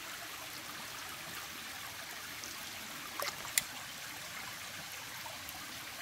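Shallow stream trickling steadily over rocks, with two brief sharp clicks a little past halfway.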